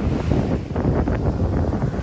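Waves breaking and washing on a beach, nearly drowned by heavy wind buffeting the microphone into a steady low rumble.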